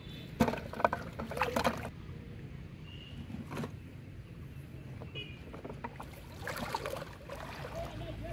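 A cluster of knocks and clatter against a plastic bucket, as a snakehead fish is dropped into it among plastic bottles. Splashing of wading steps through shallow water follows about six seconds in.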